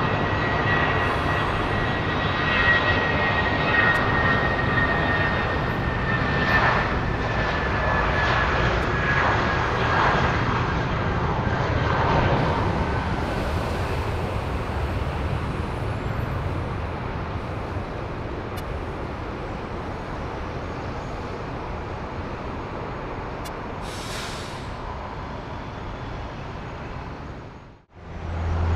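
Airliner's engines running with a high whine that slowly falls in pitch over the roar, the sound gradually fading. It cuts off abruptly near the end.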